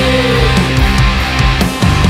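Heavy rock music: drums, bass and guitars, with a sliding held note that fades out about half a second in.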